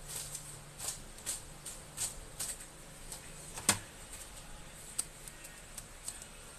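Light, irregular clicks and taps, with one sharp, louder click a little past the middle, as a thin black plastic sheet is handled and laid over a laptop's exposed keyboard.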